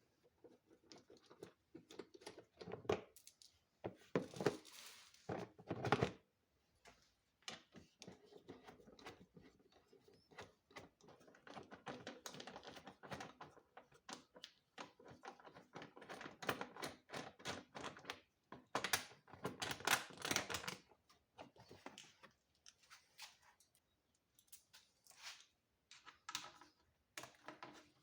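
Irregular small clicks, taps and knocks of hand work on metal parts, with a few louder knocks in the first six seconds and again around twenty seconds in.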